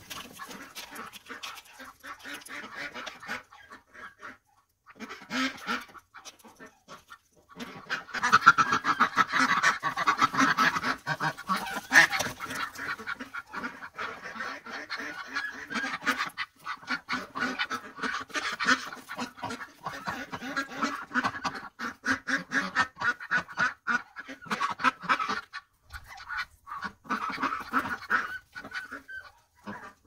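Ducks feeding on dried corn kernels: a dense run of rapid, short duck calls and bill clatter that starts about eight seconds in and goes on with brief gaps.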